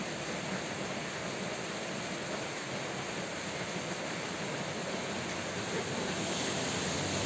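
Steady rain, an even hiss with no distinct drops or thunder.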